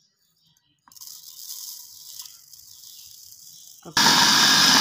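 Sugar pouring into a blender jar with a soft hiss. About four seconds in, an electric kitchen blender starts and runs loud and steady, blending strawberries, water and sugar.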